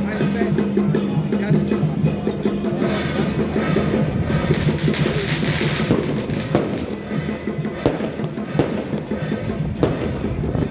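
Temple festival music with drums and percussion playing steadily, with a burst of firecrackers crackling about halfway through and a few single bangs after.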